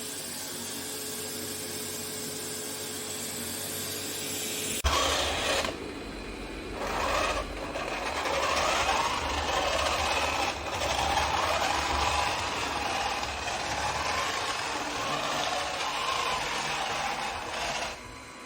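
eufy X10 Pro Omni robot vacuum running: a steady hiss, then about five seconds in an abrupt switch to louder mechanical whirring with a low rumble and a wavering whine, dipping briefly a couple of times.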